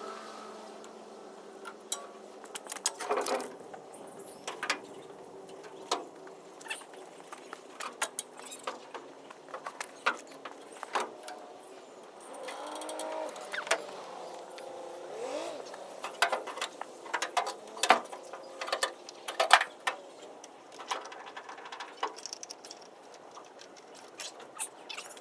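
Irregular clicks, knocks and metal clanks from hands-on work on a pickup truck, with a few short creaks about halfway through.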